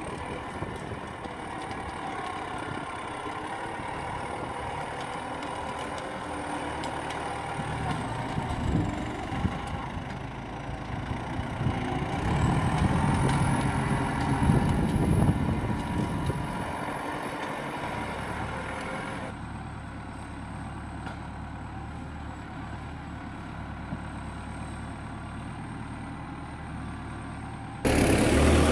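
MTZ 952.3 tractor's diesel engine running under load as the forwarder drives across soft, wet ground. It works harder and louder around the middle, then is heard from farther off for the last third.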